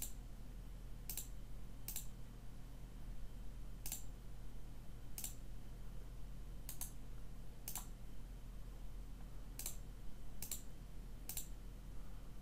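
Computer mouse clicking: about ten short, sharp single clicks at uneven intervals, over a faint steady low hum.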